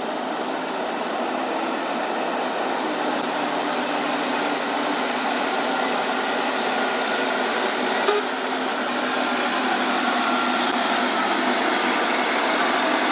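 Heavy logging truck's diesel engine running steadily, slowly growing louder, with one short knock about eight seconds in.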